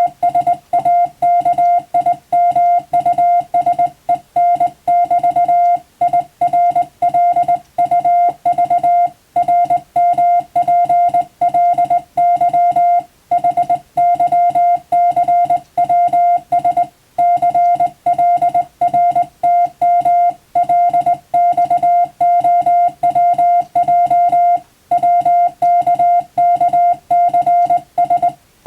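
Morse code (CW) practice tone: a single steady beep keyed rapidly on and off in dots and dashes, with short pauses between words.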